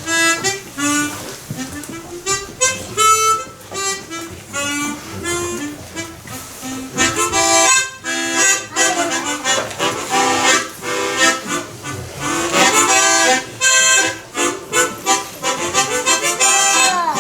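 Harmonica music: a tune of short notes and chords that runs on without a break.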